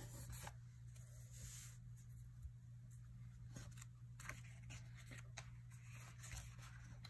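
Faint paper handling: a sticker being pressed onto a planner page, then a sticker book page turning near the end, as light rustles and ticks over a steady low hum.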